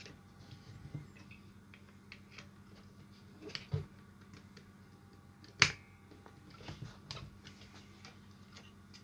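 Faint scattered clicks and taps from handling a circuit board in a plastic PCB holder, with one sharper click a little past halfway.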